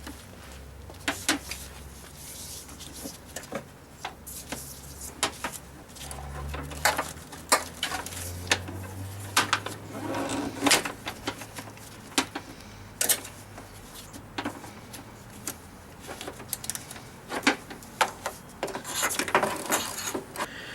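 Irregular clicks, taps and light knocks of hands working a new hood release cable through the radiator support panel in a car's engine bay.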